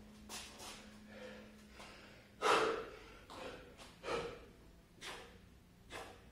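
A man breathing hard from exertion mid-way through a long burpee set, with a series of sharp gasps and exhales about once a second. The loudest comes about two and a half seconds in.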